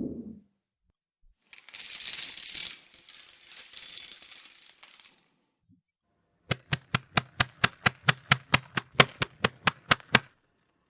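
Two horror sound effects in a row: a hissy, noisy sound that swells and fades in waves for about three and a half seconds, then after a pause a fast, even run of about twenty sharp clicks, roughly five a second, that stops suddenly.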